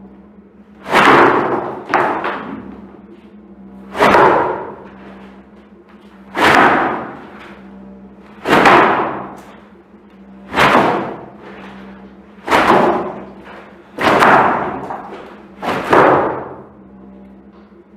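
A large sheet of cloth whipped and snapped through the air over and over, roughly every two seconds. Each stroke starts with a sudden loud snap and trails off in a rush about a second long, over a steady low hum.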